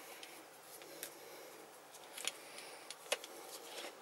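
A few faint clicks and handling noises from the plastic pump parts of a pressure solar shower as the pump head is fitted back onto its tube.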